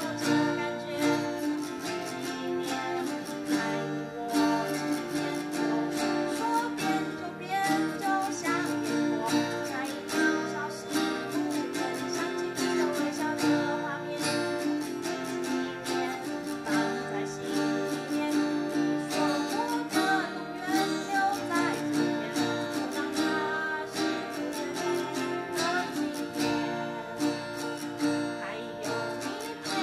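Two acoustic guitars strummed together in a steady rhythm, with a girl singing into a microphone over them.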